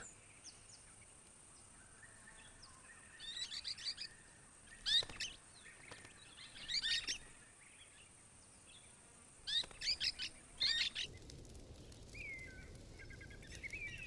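Golden-shouldered parrots calling in four short bursts of sharp, quick chirps, over a steady high buzz that stops about eleven seconds in. Near the end, fainter falling calls follow.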